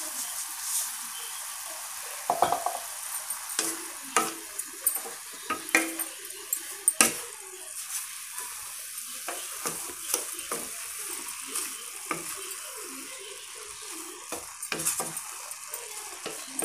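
Grated carrots with freshly added sugar sizzle in a metal kadai. From about two seconds in, a wooden spatula stirs them with irregular scraping and knocking against the pan.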